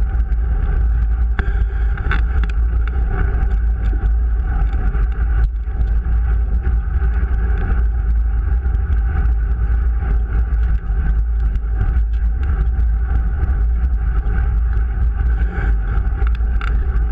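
Fat bike riding over packed snow, heard through an action camera carried on the moving bike: a steady low rumble of wind and riding vibration, with scattered small knocks and rattles from the trail.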